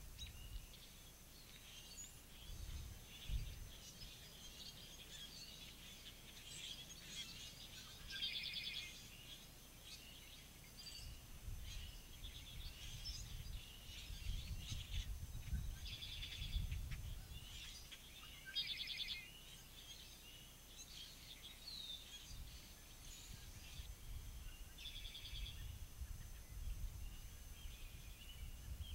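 Songbirds singing and calling, several voices overlapping, with a buzzy trilled song that comes back several times. A low rumble of wind on the microphone rises and falls underneath.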